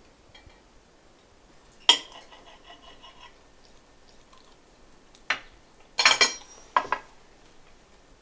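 Knife and fork clinking and scraping on a china plate while food is cut: one sharp clink about two seconds in that rings briefly, then a few quicker clatters a little past the middle.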